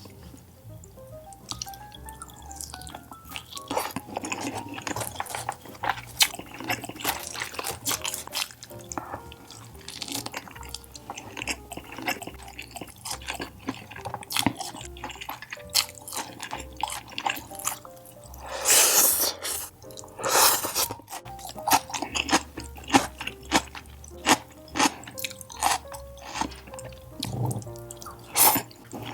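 Close-miked eating: wet chewing, lip smacks and mouth clicks, with two louder rasping bites or crunches past the middle, over quiet background music.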